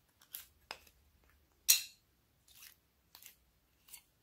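Thin plastic slime container being squeezed to push thick slime out: about six short crackles and squelches, the loudest a little before halfway.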